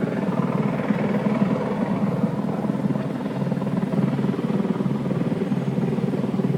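Helicopter hovering or circling overhead, its rotor making a steady, rapid chopping.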